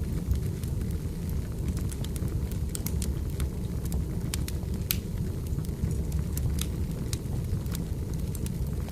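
Firewood burning, with many sharp, irregular crackles and pops over a steady low rumble.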